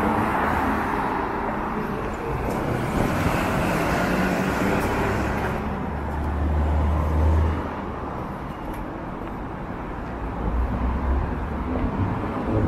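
City street traffic: cars and motorcycles passing on a multi-lane road, with a steady wash of tyre and engine noise and a louder low engine rumble about six seconds in.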